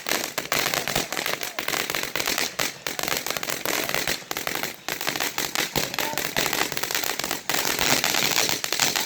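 Crackling firework going off: a continuous, dense run of rapid sharp pops and snaps.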